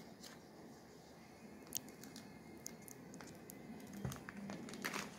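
Faint scattered clicks and crinkles of plastic binder sleeves being handled, a little busier near the end.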